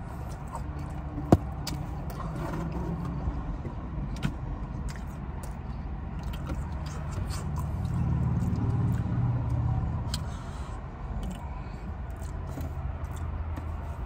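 Close-miked chewing and mouth sounds of someone eating Chicago-style stuffed pizza: wet clicks and smacks scattered through, one sharp click about a second in. Underneath is a steady low hum from inside the car, swelling a little about two-thirds of the way through.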